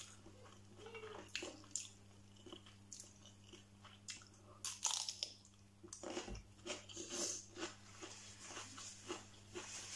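A whole raw cucumber being bitten and chewed close to the microphone: crisp crunches, with the loudest bite about five seconds in, then a run of smaller chewing crunches.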